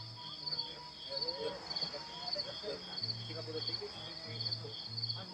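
Insects chirping in steady, regular pulses at two slightly different high pitches, the evening chorus of the forest.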